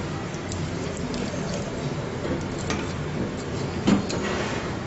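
A silicone spatula stirring and scraping sugar as it melts into caramel in an aluminium saucepan on a gas stove, over a steady hiss. There are light scrapes and clicks of the spatula on the pan, with one sharper knock about four seconds in.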